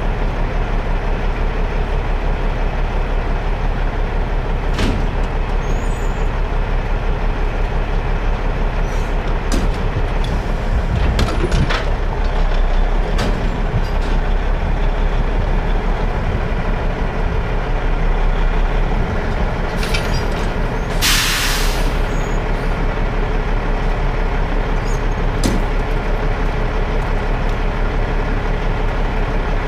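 Heavy-duty Peterbilt wrecker's diesel engine running steadily while its boom lifts a load. About two-thirds of the way through comes a hiss of air lasting about a second, and there are a few light knocks.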